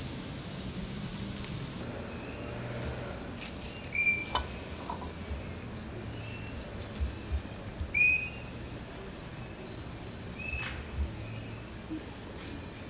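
A cricket chirps in a steady, high, fast-pulsing trill that starts about two seconds in. Short, sharper chirps come every few seconds over it, the loudest about four and eight seconds in.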